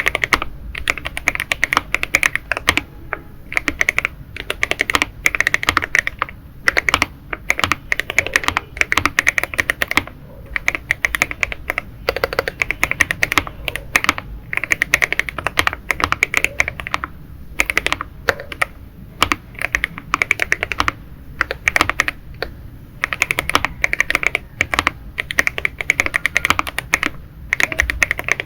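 Fast typing on a Monsgeek M1 mechanical keyboard with Leobog Nimbus linear switches, tape-modded and foamed inside, giving dense runs of sharp keystroke clacks with short pauses between bursts.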